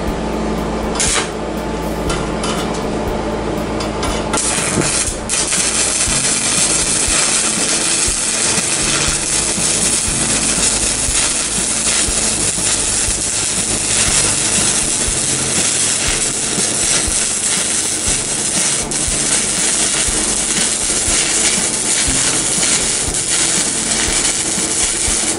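Stick (MMA) welding arc from a Global Power GP-200A inverter welder, burning a 3.15 mm electrode at about 121 A. After a brief strike about a second in, the arc catches about four seconds in and crackles steadily.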